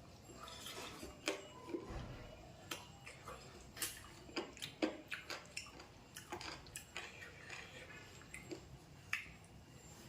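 A person eating: chewing with irregular wet smacks and sharp mouth clicks, several every second.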